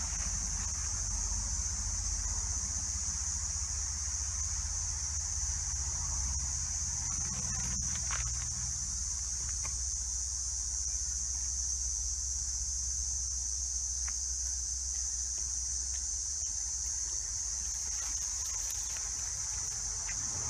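A steady, high-pitched chorus of insects calling, with a low rumble underneath that eases off about nine seconds in.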